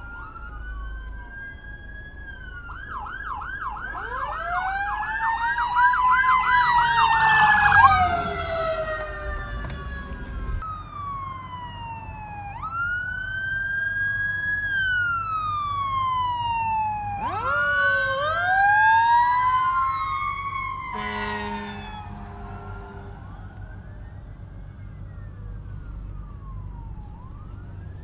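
Sirens of several fire apparatus responding with lights and sirens: electronic wail tones rise and fall slowly, switching to a fast yelp for a few seconds early on, while a deeper siren winds up in long rising sweeps twice. A short horn blast sounds a little after two-thirds of the way through, over the rumble of passing traffic.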